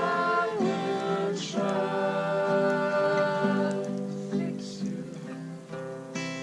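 Acoustic guitar strummed in chords, with a voice singing long held notes over it.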